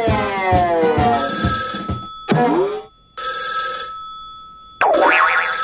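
Cartoon sound effect of an old desk telephone bell ringing in three short bursts about a second apart. It is preceded by falling sliding tones over a steady beat.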